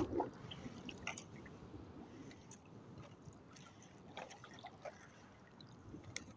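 Faint sloshing and trickling of shallow seawater around someone wading, with a few small clicks and drips scattered through it.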